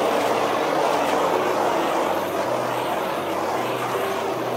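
Handheld blowtorch flame hissing steadily as it is passed over wet acrylic pour paint. Low tones step up and down underneath.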